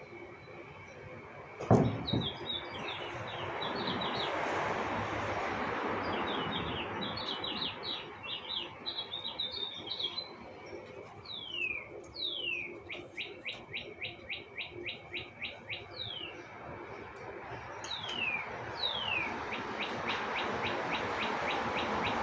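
Birds chirping and calling: bursts of quick chirps, then several downward-slurred whistles, each followed by a fast, even trill. Under them is a steady rushing background noise that swells twice. A single sharp knock about two seconds in is the loudest sound.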